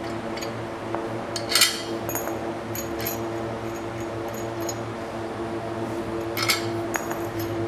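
Steel bolts and nuts clinking against the bench's steel plates as they are loosened by hand and pulled out, with the sharpest clinks about a second and a half in and again near six and a half seconds. A steady low hum runs underneath.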